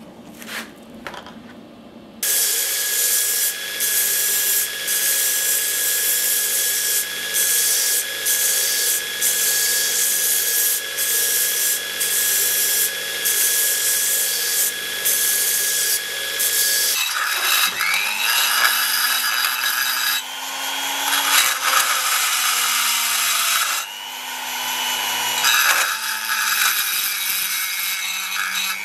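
Belt grinder grinding a small metal piece, starting about two seconds in, with short breaks as the piece is lifted off the belt. About two-thirds of the way through it gives way to a handheld rotary tool spinning up, its pitch rising and wavering under load.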